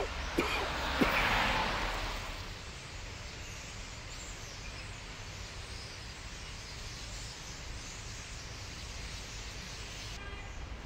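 Steady outdoor city background noise at night, an even hiss. In the first two seconds, after a few sharp clicks, a louder hiss swells and fades.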